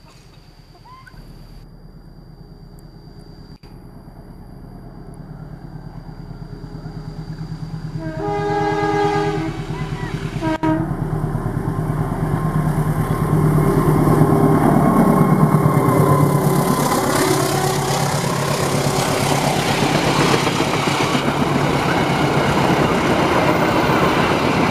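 Diesel-electric locomotive of a KAI passenger train approaching, its engine growing steadily louder. It sounds its horn about eight seconds in, once long and then once briefly, and runs past with the engine at its loudest. The coaches follow, rolling by with a steady rumble and wheel clatter.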